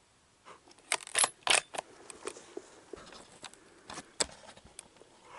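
A run of sharp metallic clicks and clacks, four close together about a second in and a few scattered ones later: a rifle being handled, typical of its bolt being worked.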